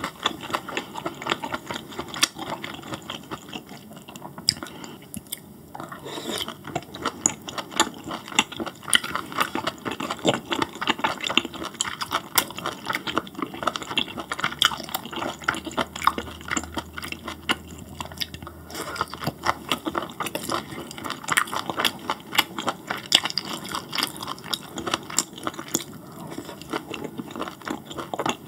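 Close-miked wet chewing of grilled beef intestines (gopchang): a dense, irregular run of smacking clicks from the mouth, with a couple of brief lulls.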